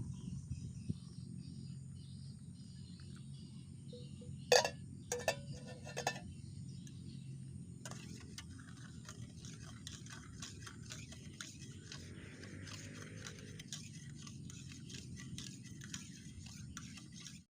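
A few sharp clinks, like metal camp cookware knocked together, about four and a half to six seconds in, over a steady forest background of insects and a low rumble. The sound cuts off abruptly near the end.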